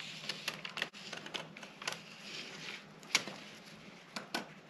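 Scissors cutting through a paper sewing pattern along a curved line, a series of irregular short snips with one sharper snip about three seconds in.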